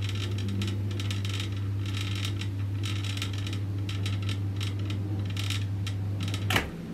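Deep-well pump humming steadily as pressure builds against a closed outlet, with irregular light clicks and rattles. About six and a half seconds in, the Monzana pressure switch cuts out with a sharp click and the hum stops: the set cut-off pressure has been reached.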